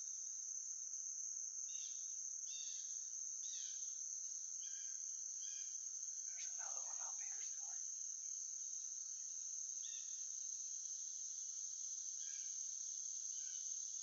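Steady high-pitched drone of insects singing in the forest canopy, with scattered short chirps over it and a brief lower sound about six and a half seconds in.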